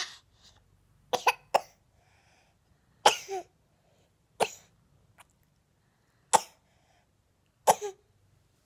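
A toddler's short, sharp coughs in a string of about six, a quick cluster then single coughs a second or two apart.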